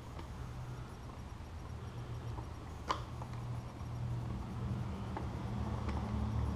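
Faint handling noises of a motorcycle turn signal being fitted into the plastic tail section: one sharp click about three seconds in and a few light ticks, over a steady low hum.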